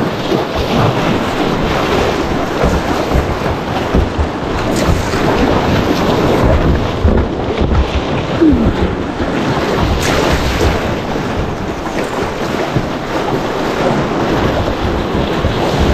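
River rapids rushing and churning around a kayak's bow: a loud, steady wash of whitewater.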